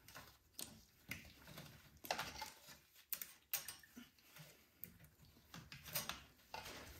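Faint, irregular clicks and taps of hands pressing new ignition coil wires into a plastic wire guide on a snowblower engine.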